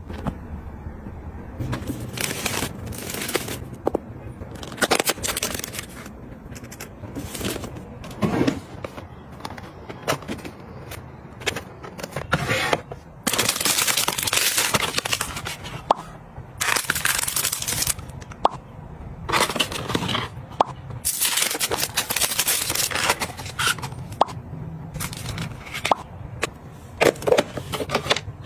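Crinkling and rustling of plastic and paper packaging being handled and torn open. The crinkling comes in irregular stretches, the longest in the middle, with scattered sharp clicks and taps as cosmetic jars and bottles are handled and set down.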